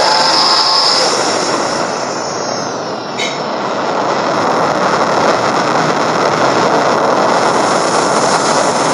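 Starship engine sound effect for an Imperial Star Destroyer flying past: a steady, dense rushing noise. It dips slightly about three seconds in, with a brief sharp tick, then swells again.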